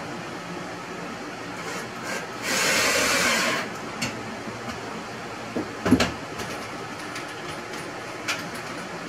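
Plywood cabinet parts being handled: a scraping rush lasting about a second, then a sharp knock about six seconds in and a few light clicks, over a steady fan hum.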